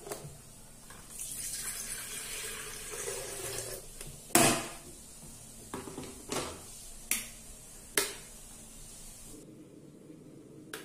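Water running into an electric kettle for about two and a half seconds, then one loud clunk, then several shorter clicks and knocks as the kettle is set on its base and switched on.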